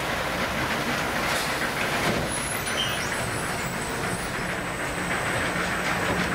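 Automatic bag palletizer and its factory line running: steady, dense mechanical noise, with a thin high whine that starts about halfway through.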